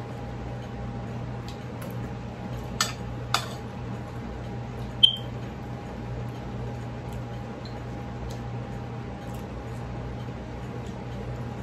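A metal spoon clinking against ceramic plates and bowls while eating: two light taps about three seconds in, then a sharper, ringing clink about five seconds in, over a steady low hum.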